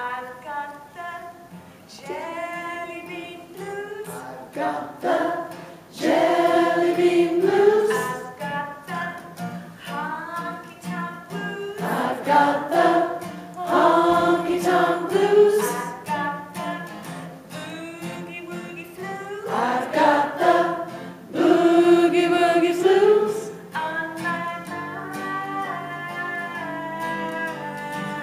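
Voices singing a children's blues song, phrase after phrase, to acoustic guitar accompaniment.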